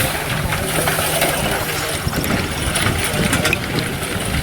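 An engine running steadily, with a light clatter of machinery over it.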